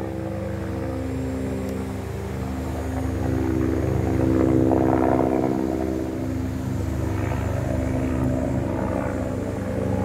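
Helicopter flying overhead: a steady rotor beat under a hum of engine tones. It grows louder about four seconds in, then eases off a little.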